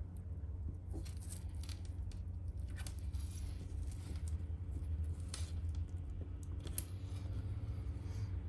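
Light clicks and rustles of hand work on small parts, over a steady low hum.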